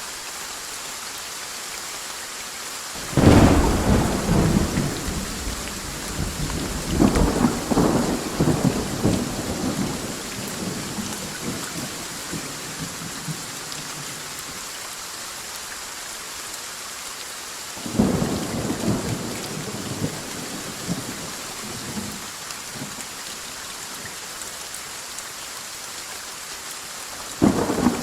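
Steady heavy rain with thunder: a loud crack about three seconds in that rolls on in rumbles for several seconds, another peal about eighteen seconds in, and a third starting near the end.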